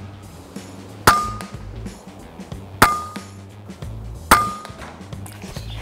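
Three shots from a 6.35 mm PCP air rifle, about a second and a half apart, each a sharp crack followed by a brief metallic ring.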